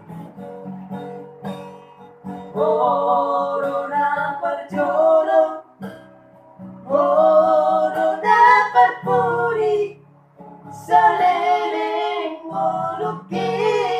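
Acoustic guitar strummed alone at first, then a voice singing long, high held phrases with vibrato over it, with short pauses between the lines.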